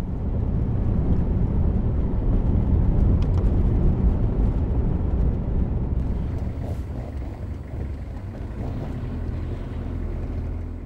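Vehicle driving: a steady low rumble of engine and road noise that eases off a little about halfway through.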